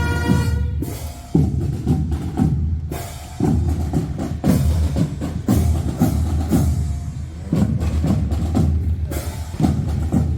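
Fanfare band's drum section playing a marching cadence of repeated drum strikes. A held brass chord cuts off just after the start, leaving the drums alone.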